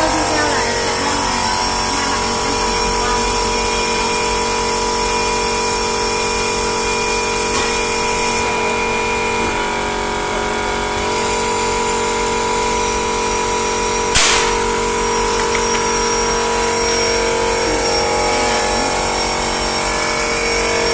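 Electric packaging machinery running with a steady whirring hum and several constant whining tones, broken by one sharp clack about fourteen seconds in.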